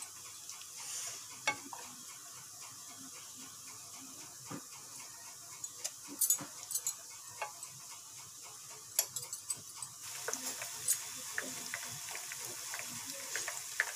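A metal spoon tapping and scraping against a steel pot of boiled tomatoes, in scattered clicks. About ten seconds in, a steady sizzle starts: finely sliced onions frying in hot oil, with occasional clicks over it.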